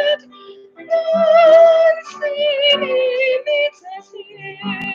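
A woman's voice singing a slow hymn: phrases with long held notes, separated by short pauses for breath.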